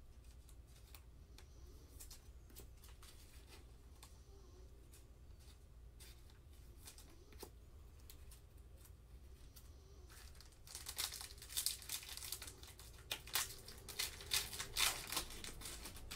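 Soft handling clicks at first, then from about eleven seconds in the foil wrapper of a Panini basketball card pack is torn open and crinkled, in a quick run of sharp rips and rustles that are the loudest sound here.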